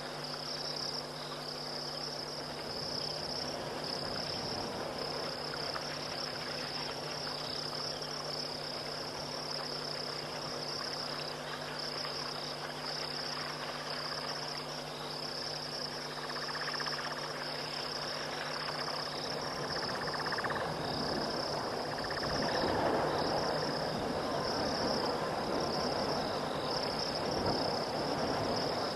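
Night chorus of crickets, a steady, finely pulsing high-pitched trill, over a low steady hum. About two-thirds of the way through, a broader rushing noise grows louder beneath the trilling.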